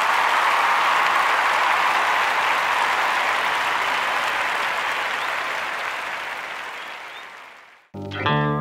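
Crowd applause fading out gradually over about seven seconds. It is cut off, and plucked-guitar music starts abruptly near the end.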